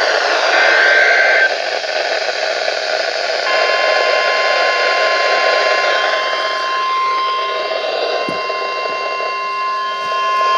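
NOAA Weather Radio Emergency Alert System activation over steady radio hiss. The last burst of the SAME digital data header comes about a second in. Then, from about three and a half seconds in, the steady 1050 Hz warning alarm tone starts, which signals a warning-level alert, here a severe thunderstorm warning.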